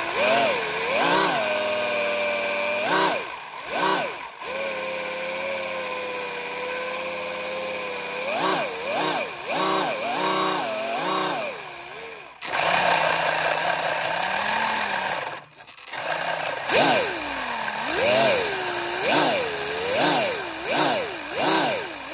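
SLA 3D-printed twin-screw compressor, spun by an electric motor, revved up and down over and over. Its pitch rises and falls in quick sweeps, with a few longer spells held at a steady speed.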